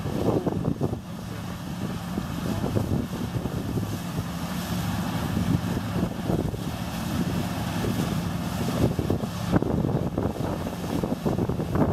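New Holland combine harvester running steadily with a continuous engine hum, with wind gusting on the microphone now and then.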